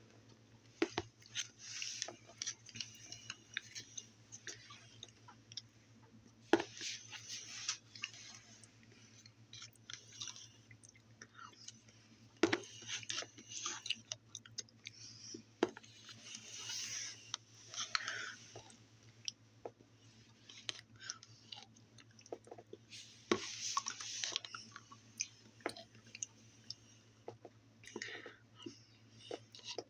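Eating yogurt from a plastic cup with a metal spoon: irregular light clicks and scrapes of the spoon against the cup, mixed with close mouth sounds of eating.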